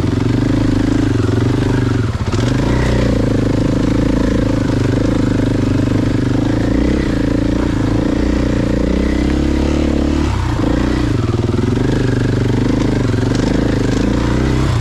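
Single-cylinder four-stroke engine of a Husqvarna FE450 enduro bike working under throttle on a trail climb. Its pitch rises and falls as the throttle is worked, with brief roll-offs about two seconds in and again near ten seconds.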